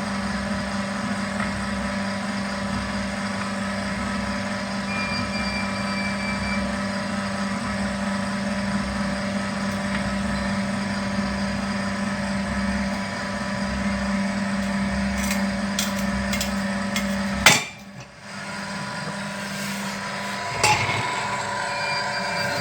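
Electric drive motor and gearbox of a rotary pipe-cutting machine running with a steady hum. About three-quarters of the way through, a sharp loud bang and the hum stops, followed by a single click a few seconds later.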